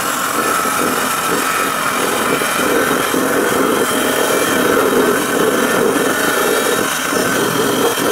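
Small wet lapidary saw blade spinning and grinding steadily through a rough agate stone as it is hand-fed into the cut.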